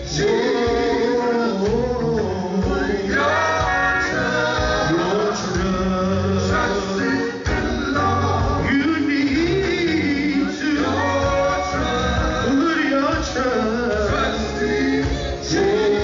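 Live gospel quartet music: a male lead singer with backing vocal harmonies over electric guitar, bass guitar and drums.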